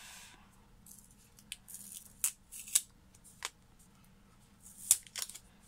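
Plastic wrapping crinkling in short, scattered crackles as fingers pick at it, working to peel it off a new device; the loudest crackle comes about five seconds in.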